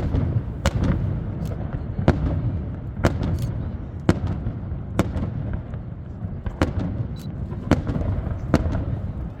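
Fireworks display: sharp bangs about once a second over a continuous low rumble of overlapping bursts.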